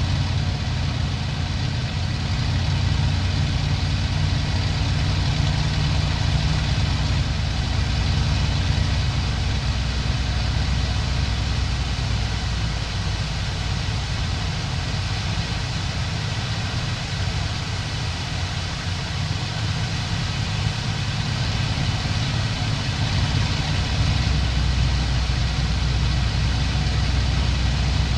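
Daimler-Benz DB 605 inverted V12 of a Bf 109G-2 running steadily in cruise, heard from inside the cockpit, at low-ish power of about 1900–2100 rpm. Small power adjustments to hold formation make the note ease off a little around the middle and swell again near the end.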